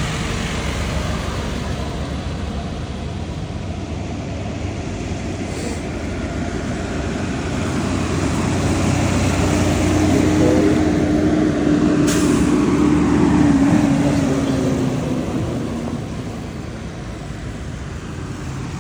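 A bus drives past: its engine and road noise swell, with a steady engine tone, to their loudest in the middle, then fade. A short sharp click comes partway through.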